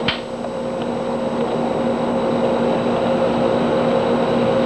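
Steady hum and hiss of a VHS-C camcorder's own recording noise, with a sharp click just after the start.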